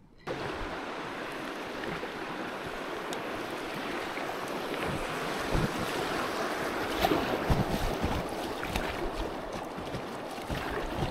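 Fast river water rushing and splashing around a kayak running a riffle, with wind buffeting the microphone in gusts.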